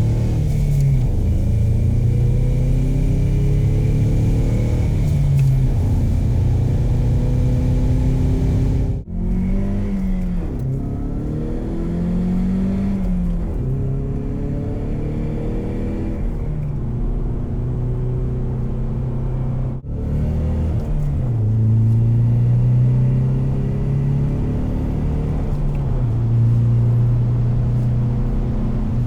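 Exhaust note of a 2015-2017 Ford Mustang EcoBoost's turbocharged 2.3-litre four-cylinder, revved repeatedly with the pitch rising and falling. It comes as three back-to-back recordings, with abrupt cuts between them about nine and twenty seconds in.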